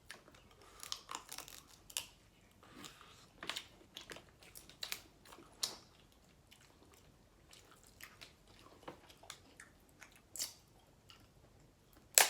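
Close-miked eating of seafood boil: chewing and crunching in irregular short clicks and crackles, with one sharp snap near the end.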